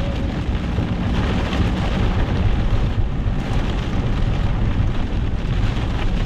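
Heavy rain pelting a moving car, heard from inside the cabin over a steady low road rumble.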